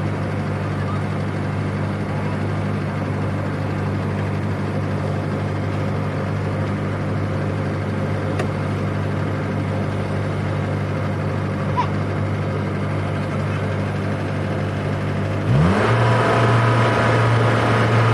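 Engine of a small rice-harvesting machine running steadily, then revving up sharply about three-quarters of the way through and holding at a louder, higher pitch.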